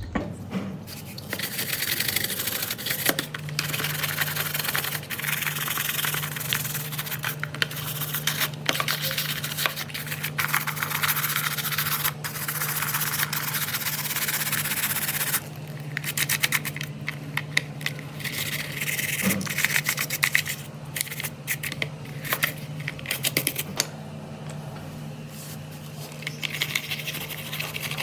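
Continuous rubbing and scrubbing on a small scale-model car's body, with many small clicks and a steady low hum underneath.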